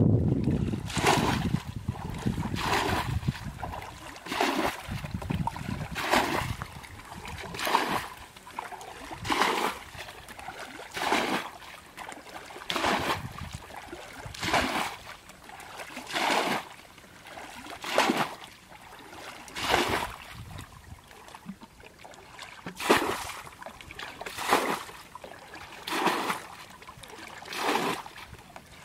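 Water being bailed out of a shallow ditch with a plastic bucket: a regular scoop-and-pour splash about every second and a half to two seconds. Wind rumbles on the microphone for the first couple of seconds.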